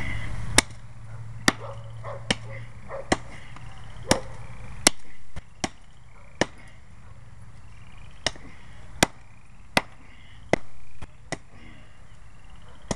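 M48 tomahawk chopping into the trunk of a small tree: a steady run of sharp blows, a little under one a second, with a short break about halfway through.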